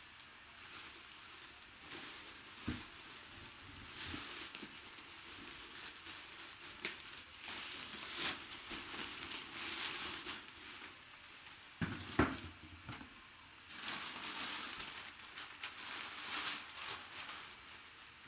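Rustling and crinkling of a shiny fabric drawstring bag and a cardboard box being handled, in uneven bouts, with a couple of short knocks, the louder one about twelve seconds in.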